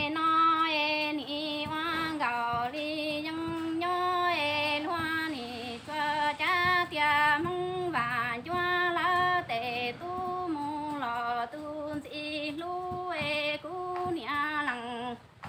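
A woman singing kwv txhiaj, Hmong traditional sung poetry, solo and unaccompanied. She sings long held notes that dip in pitch at the end of each phrase.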